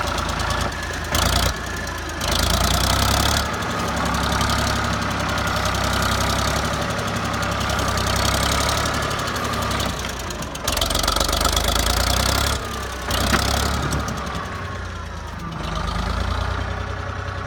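Tractor engine running steadily, with a few louder bursts of noise on top of it, the longest lasting about two seconds.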